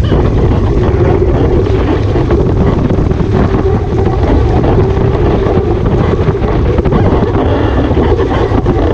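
Wind buffeting the microphone of a camera mounted on a sailing Waszp foiling dinghy, mixed with rushing water and spray; a loud, steady noise with no distinct events.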